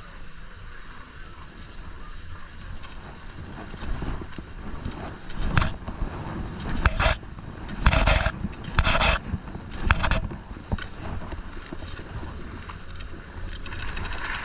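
Skis sliding over packed, groomed snow, with wind buffeting the microphone. In the middle comes a run of five or six short, sharp scrapes of the ski edges on hard snow, the loudest sounds here.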